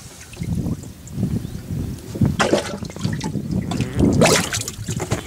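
Water sloshing and splashing in a boat's live well as a bass thrashes while being grabbed out by hand, with two sharper splashes about two and a half and four seconds in.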